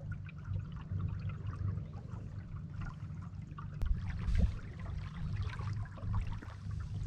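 Water trickling and splashing in small irregular bits over a steady low hum.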